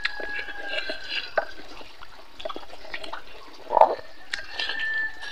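Close-miked eating sounds: wet chewing and lip smacking as pork ribs and rice are eaten by hand, with many small irregular clicks and one louder smack about four seconds in.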